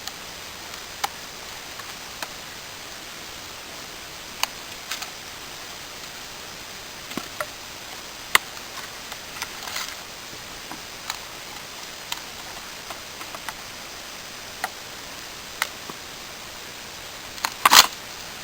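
Scattered sharp clicks and taps, one every second or two, over a steady hiss, with a louder rattle of clicks near the end: small handling and working sounds.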